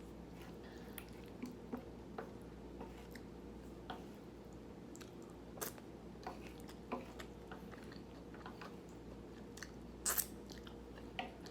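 A person chewing food, with scattered small mouth clicks every second or so and a sharper double click about ten seconds in.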